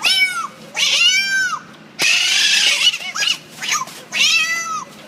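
Cat meows imitated with a reed animal-call whistle held inside the mouth and shaped by the lips: a string of meows, each rising and then falling in pitch, some with a rough hiss.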